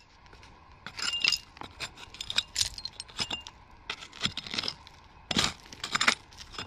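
Small hand pick chipping and scraping at stony dump soil full of old glass: irregular sharp clicks and scrapes, a few with a brief clinking ring. The loudest strikes come about five and six seconds in.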